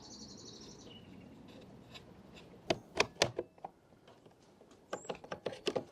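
Small sharp clicks and taps of a screwdriver undoing the two tiny screws that hold a van door mirror's side repeater indicator, and of the plastic being handled. The clicks come in two clusters, about three seconds in and near the end. A short high-pitched tone sounds in the first second.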